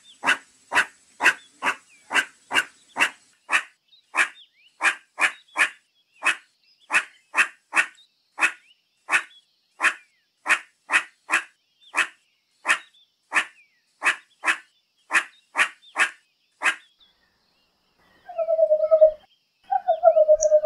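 Meerkat giving a rapid run of short, sharp calls, about two a second, which stops about three-quarters of the way through. Near the end come two longer, lower calls, each slightly falling in pitch.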